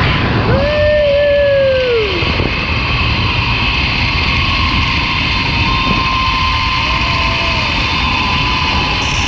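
Zipline trolley running fast along a steel cable, a steady whine from its pulleys over loud wind rush on the helmet camera. About half a second in, a long drawn-out call holds and then falls away, and a shorter, fainter one comes near the end.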